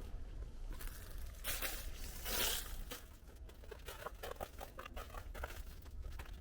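Rustling and crunching footsteps on a littered path, with a longer scraping rustle about two seconds in and a run of short crunches in the second half.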